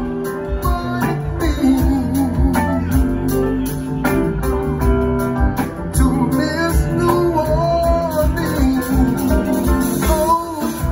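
Live band playing: drum kit, electric guitar and keyboard, with a voice singing over them.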